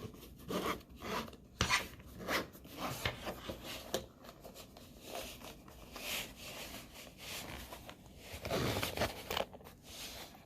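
Headphone packaging being handled: irregular rubbing and scraping of the box and carrying case, with light knocks and a longer, louder scrape near the end.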